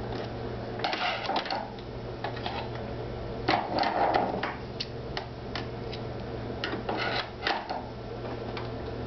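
Pfaff 2170 sewing and embroidery machine being worked by hand during rethreading: three irregular spells of clicking and clattering, about a second in, in the middle and near the end, over a steady low hum.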